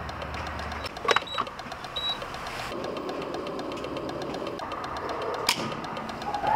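Gasoline pump dispensing fuel through a nozzle into a pickup's tank, a steady flowing hiss with a few sharp clicks of the nozzle and pump handling and a couple of brief high tones.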